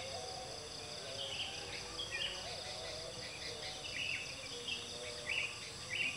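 Outdoor ambience: a steady high insect drone with birds chirping in short bursts every second or so.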